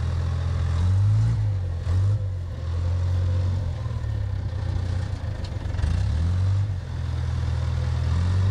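Diesel engine of a wheel loader running with a deep rumble that swells and eases several times as the machine moves and works its bucket.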